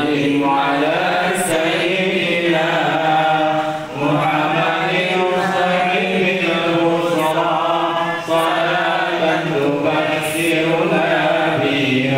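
A standing congregation of men and women singing a salawat, an Islamic devotional chant in praise of the Prophet, together in unison. The phrases are long and held, with brief breaks about four and eight seconds in.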